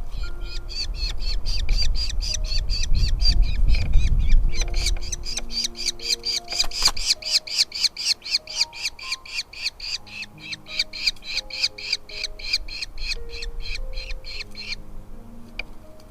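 Falcons at the nest giving a fast, even run of sharp, high calls, about five a second, that stops near the end. Soft background music with held notes plays underneath, and a low rumble comes in the first few seconds.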